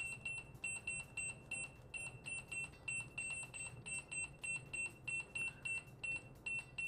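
Built-in barcode scanner of a Sunmi V2s handheld Android POS terminal beeping at each successful read as it scans a barcode over and over: short high beeps, about three or four a second.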